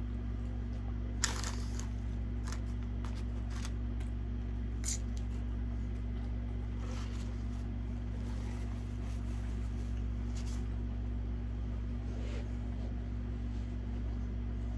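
Chewing and mouth sounds from eating, with scattered short crackly clicks, over a steady low electrical hum.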